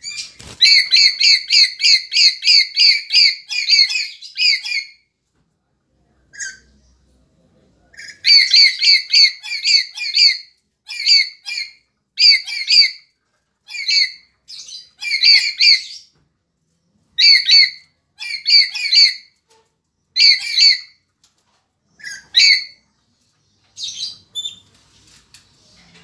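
Lories (Lorius parrots) screeching: shrill, harsh notes in quick runs of about four a second. A long run comes in the first five seconds, and after a pause about three seconds long the calls return as shorter bursts every second or two.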